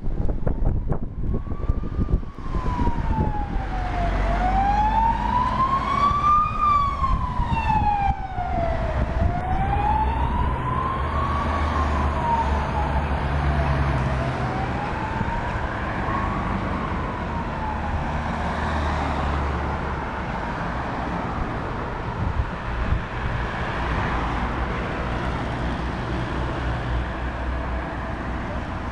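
Siren of a Mercedes-Benz Sprinter ambulance sounding a slow wail, rising and falling about every five seconds, each sweep a little lower and fainter as it draws away, until it fades out about two-thirds through. Road traffic runs underneath throughout.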